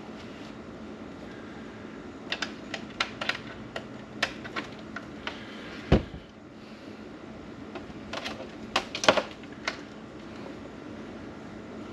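Sharp plastic clicks and taps from handling a rechargeable COB camping lantern and its charging cable, in two clusters. About six seconds in there is one heavier knock, the loudest sound, as the lantern is set down on the table.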